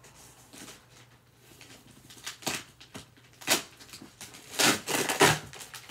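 Packaging being handled and rustled as a parcel is unpacked by hand, in a few short bursts, the loudest ones near the end.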